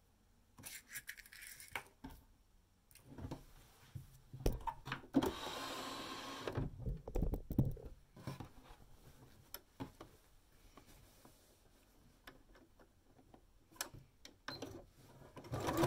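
Cotton fabric panel being handled, slid across a table and positioned under a sewing machine's presser foot: rustling and sliding with scattered light clicks and knocks, and one longer sliding rustle about five seconds in.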